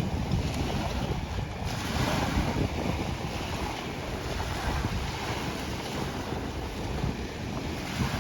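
Wind buffeting the microphone over the steady wash of waves, with no clear engine note.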